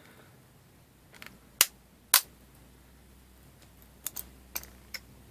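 3D-printed PLA support pieces snapping and cracking as they are broken out of a printed wrench: two sharp cracks about half a second apart, then a few lighter clicks near the end.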